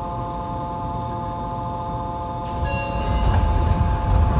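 Yokohama Municipal Subway Blue Line 3000A-series car running sound: a steady hum of several even tones from the train's equipment. About two and a half seconds in, a hiss starts and a heavier low rumble builds and grows louder.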